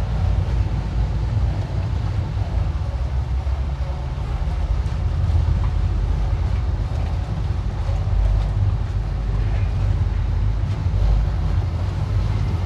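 Boat engine running steadily at low speed, a continuous low rumble, with some wind noise over the microphone.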